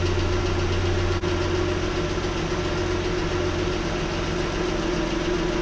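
Lincoln MKX's V6 engine idling steadily, running on a newly fitted battery.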